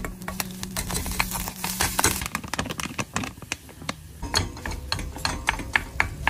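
Wooden spoon knocking and scraping in a small pot while scrambled egg and a tray of instant rice are stirred together: a run of quick irregular clacks and clinks over a low steady hum.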